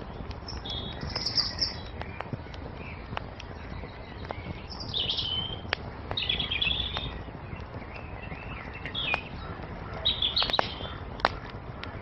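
Songbirds chirping in short phrases over a crackling wood fire, with sharp pops from the fire scattered through, the loudest one near the end.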